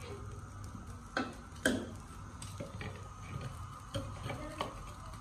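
Garlic being crushed with a metal pestle in a wooden mortar: irregular hollow knocks, the two loudest a little over a second in and about half a second apart, then scattered lighter ones.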